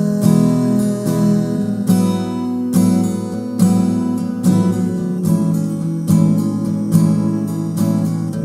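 Acoustic guitar strummed in a steady rhythm, with accented strokes a little more than once a second and the chords ringing between them: an instrumental break with no singing.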